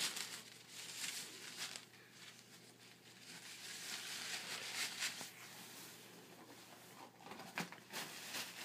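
Paper sterile drape crinkling and rustling as it is folded and gathered up by gloved hands, in uneven spells of crackle.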